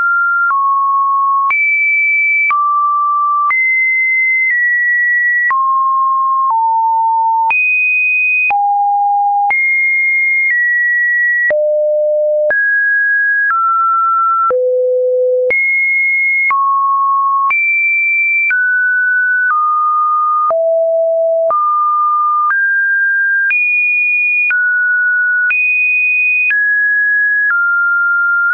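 Computer-generated Webdriver Torso-style test audio: a run of pure sine tones, one a second, each jumping to a new random pitch anywhere from mid to quite high, with a click at each change.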